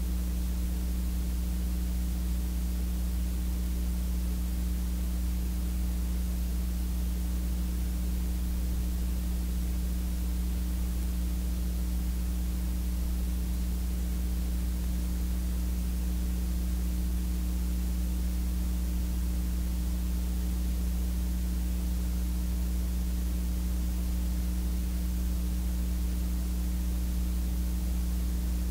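Steady electrical mains hum with hiss from the sound system's microphone and recording chain, unchanging throughout.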